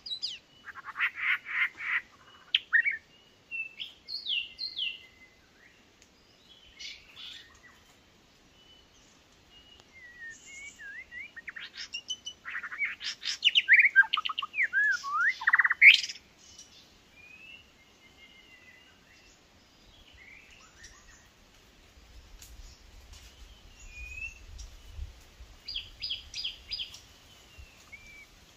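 White-rumped shamas singing and calling at close range: bursts of varied clear whistles, gliding notes and rapid chattering trills, loudest about halfway through and sparser near the end.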